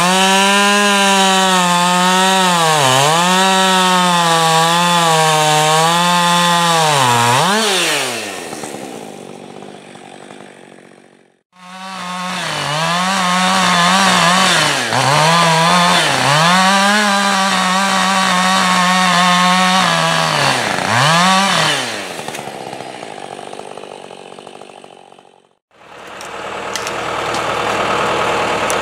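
Husqvarna two-stroke chainsaw at full throttle bucking a felled maple log. Its pitch dips again and again as the chain loads in the cut, then falls away as the throttle is released, in two separate runs. Near the end a steady engine hum of a different kind takes over.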